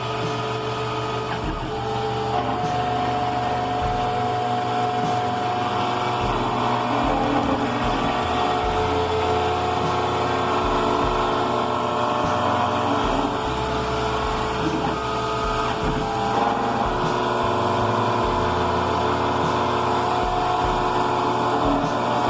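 Computerised key-cutting machine milling a Honda laser-cut key blank with a 2.5 mm cutter: a steady motor sound whose tones shift in steps as the cutter moves along the blade.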